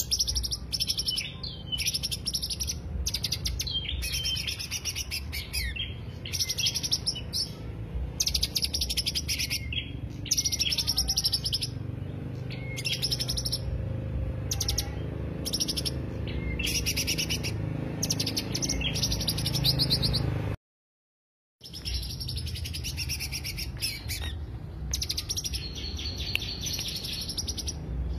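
Green leafbird (cucak hijau) singing in short, rapid phrases of high chattering notes, each about a second long with brief pauses between, over a low background rumble. The sound cuts out completely for about a second roughly three-quarters of the way through.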